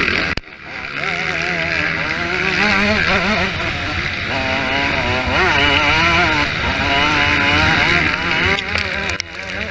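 Motocross bike engine running hard, its pitch rising and falling repeatedly as the throttle is worked, under a heavy rushing noise. The sound drops out sharply about half a second in and again near the end.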